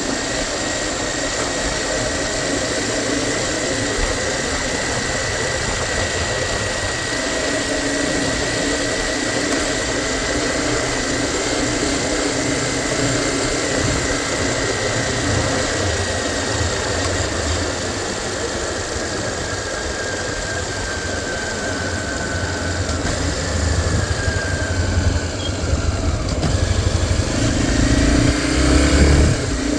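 Honda XR 250 Tornado single-cylinder four-stroke motorcycle engine running steadily, with a faint whine that slowly drops in pitch. In the last few seconds it gets louder and rougher.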